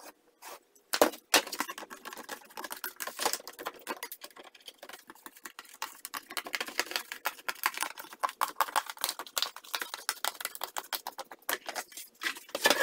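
Scissors cutting a nine-inch circle out of a coroplast (corrugated plastic) sheet: a rapid, irregular run of snips and clicks.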